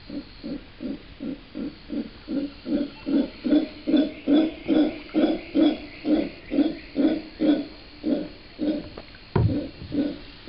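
Howler monkeys calling: a rhythmic series of low grunts, about three a second, building louder toward the middle and then easing off. A single knock sounds about nine seconds in.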